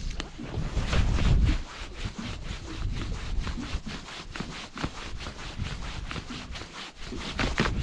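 Fly line being retrieved hand over hand in a fast roly-poly retrieve, the line rasping through the fingers and rod guides in quick, even strokes, about four a second. Wind buffets the microphone for the first second or so.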